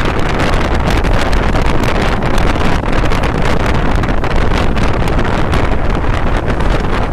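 Wind buffeting the microphone of a camera held out of a fast-moving passenger train, over the steady rumble of the coach's wheels on the track, with frequent sharp clicks and clacks.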